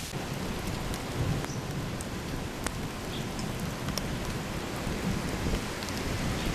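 Heavy rain falling steadily, with scattered sharp drops ticking close by and a low rumble swelling underneath.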